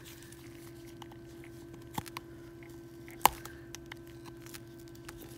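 Faint clicks and taps from handling a phone and small repair tools on a workbench, with one sharper click a little past three seconds in, over a steady low hum.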